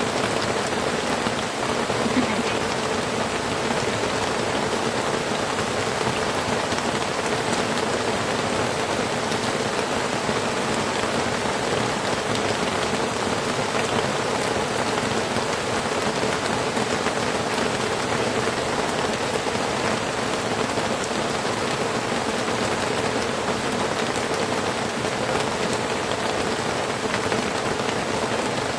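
Heavy rain falling steadily, a dense even patter on a surface.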